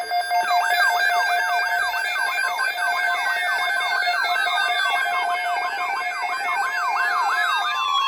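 Layered electronic emergency alert tones: steady tones joined about half a second in by a siren-like sweep repeating about four times a second, with slow falling glides over them.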